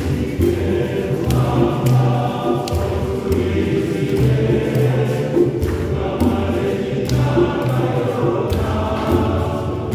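A choir singing a lively song, with sharp percussive strikes keeping a beat throughout.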